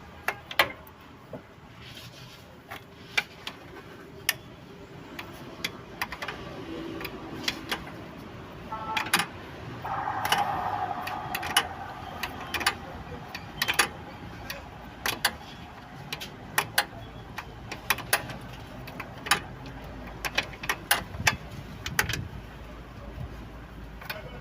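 Irregular metallic clicks, clinks and taps of hand tools and metal parts being handled while fitting a throttle body to a car engine, a few sharp knocks a second at the busiest.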